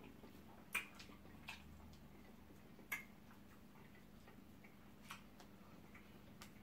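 Faint, wet mouth clicks and lip smacks from people chewing eba and okro soup. About five or six clicks come at irregular intervals, the strongest about a second in and near the three-second mark.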